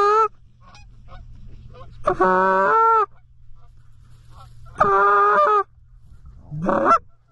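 Canada goose call blown by a hunter: four loud, drawn-out honks about two seconds apart, the last one breaking upward in pitch, calling to Canada geese to bring them in over the decoys.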